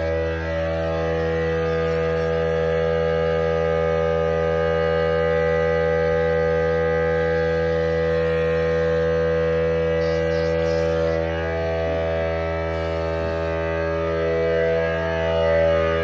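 A motor-driven tool or machine running steadily: a constant whining hum with many overtones, its pitch and level barely changing.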